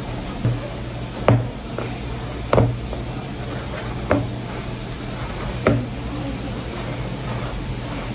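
Soft, sticky bread dough being mixed in a bowl, with a sharp knock against the bowl about every second and a half.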